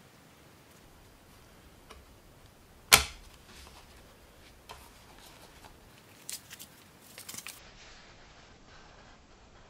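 A DVD pressed onto the plastic centre hub of its keep case, snapping into place with one sharp click about three seconds in. Lighter clicks and taps follow as the plastic case and its paper booklet are handled.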